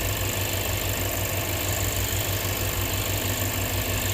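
2007 Lexus IS250's 2.5-litre V6 idling steadily, a low even pulsing, soon after its first start following the ignition-circuit repair.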